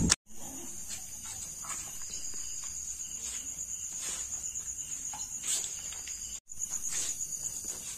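Night insects chirring in a steady, high, finely pulsing drone, with faint scattered ticks beneath it. The sound cuts out briefly a little past six seconds in.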